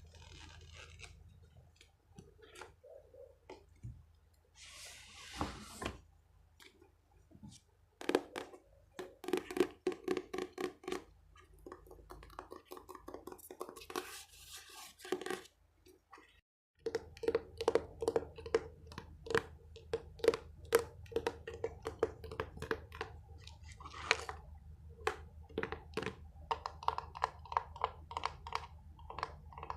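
Close-miked ASMR trigger sounds: fingers tapping and scratching on a small object, in quick runs of taps and clicks with a few brief scratchy rubs. The sound drops out briefly about sixteen seconds in.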